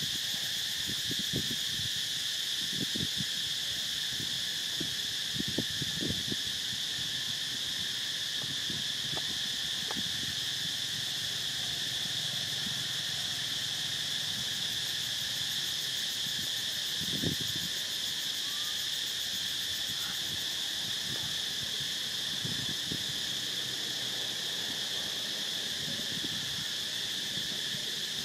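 Steady, shrill chorus of insects droning without a break, with a few soft low knocks and rustles now and then.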